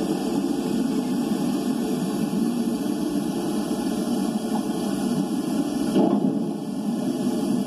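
Underwater ocean noise from a hydrophone feed played over a speaker: a steady low hiss, with one brief knock about six seconds in.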